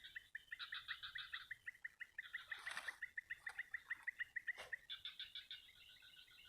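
Birds calling: a fast, even series of chirps at one pitch, about eight a second, with higher trilling over it and two brief sharper calls near the middle.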